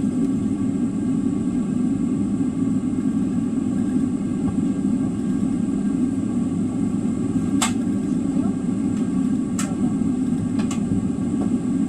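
Steady low rumble of a Boeing 777-300's cabin on the ground, with a thin high whine held steady above it. A few sharp clicks sound in the second half.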